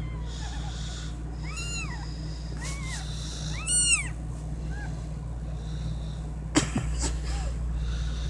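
Newborn kittens mewing: about five short, high-pitched cries that rise and fall in pitch, the loudest about four seconds in. A sharp knock follows at about six and a half seconds.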